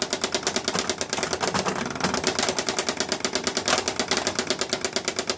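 Bally Eight Ball Deluxe pinball machine clicking fast and evenly, about ten clicks a second.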